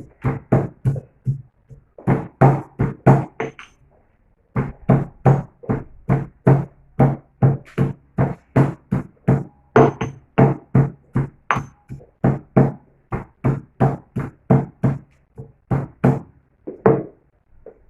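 Pestle pounding ginger in a traditional mortar, steady knocks about two to three a second with a short ring to each, pausing briefly about four seconds in.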